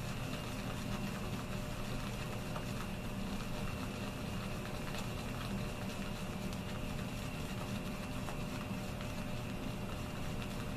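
Shaving brush swirled against slices of Arko shaving-soap stick and a little water in a small lathering bowl: a fine, continuous crackling swish as the soap is worked into a paste, over a constant low hum.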